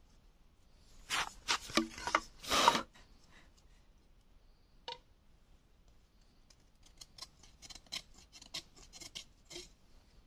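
Knife blade cutting and scraping bamboo: a few hard rasping strokes about one to three seconds in, a single click midway, then a run of quicker, lighter shaving strokes near the end as a bamboo strip is whittled.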